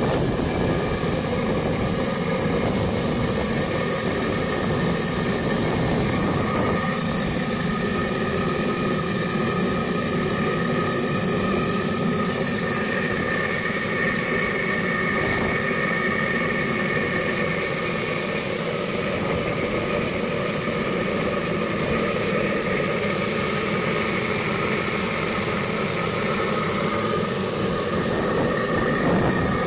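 Engine of a 1949 Bolinder-Munktell BM20 tractor running at a steady speed, an even mechanical clatter and hiss without change.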